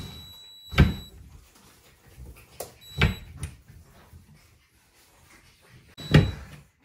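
Cordless drill driving screws to fix metal coat hooks to a wall: the drill's whirring stops about a second in with a heavy thud, then two more short bursts, about 3 and 6 seconds in, each ending in a loud thud.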